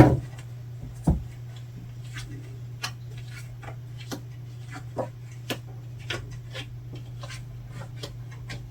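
Tarot cards being handled on a table: a scatter of light, irregular clicks and taps, with a knock at the start and another about a second in, over a steady low hum.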